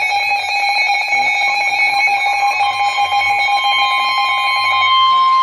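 Steady electronic alert tones: a lower alarm tone sounds first, then about halfway through a slightly higher single steady tone comes in and takes over near the end. This is the NOAA Weather Radio 1050 Hz warning alarm tone, which heralds a new warning message.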